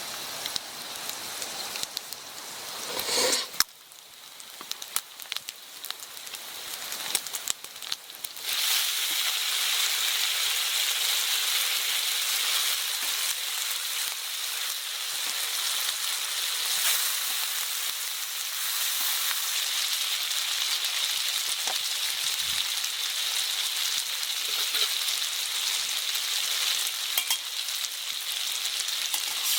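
Food frying in a pan of hot oil: a steady sizzle that starts suddenly about eight seconds in, preceded by scattered crackles.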